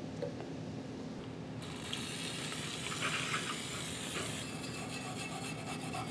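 Liquid hissing and splashing as a grimy drum-brake part is washed over a pan of cleaning solvent, starting about one and a half seconds in. In the last couple of seconds this gives way to a brush scrubbing the part in quick scratchy strokes.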